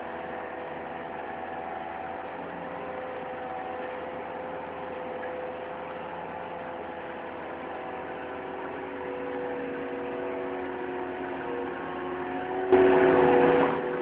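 Mustang skid-steer loader's engine running steadily while it drives a Bobcat hydraulic auger boring a hole, its pitch shifting a little as the load changes. Near the end a sudden, much louder burst of noise lasts about a second.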